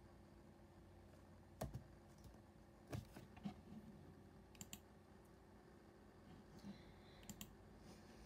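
A handful of light, scattered clicks at a computer keyboard, some in quick pairs, over near-silent room tone.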